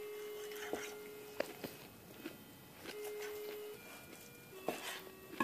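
Scattered light clicks and knocks of a carving knife and fork against a wooden cutting board as a roast is sliced, over a faint steady tone that stops and starts a few times.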